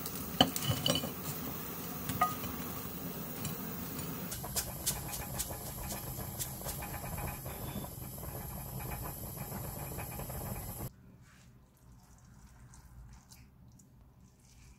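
Chopsticks and pan-fried dumplings clicking and knocking against a ceramic plate and the frying pan as the dumplings are slid out of the pan onto the plate, for the first few seconds. Then a steady hiss that cuts off suddenly about 11 seconds in.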